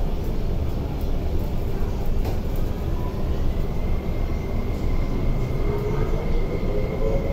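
Cabin sound of an MTR SP1900 (IKK) electric train: a steady low running rumble, joined about two and a half seconds in by a faint high steady tone, and near the end by a motor whine that slowly rises in pitch as the train picks up speed.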